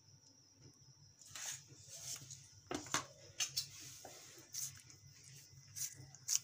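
Soft squishes and scattered light clicks as ketchup is squeezed onto pizza dough and then spread with a metal spoon, over a faint low hum.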